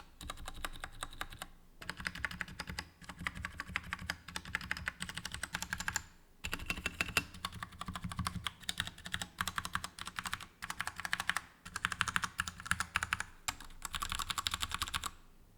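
Typing on a Royal Kludge RK100 mechanical keyboard with tactile brown switches: fast, dense runs of key clicks and clacks, broken by brief pauses several times.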